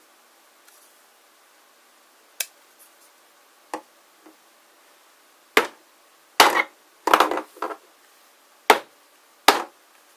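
Hollow plastic toy figures being handled and set down on a tabletop: a run of sharp knocks and short clatters, a few scattered at first, then coming close together in the second half, the loudest a brief rattling clatter.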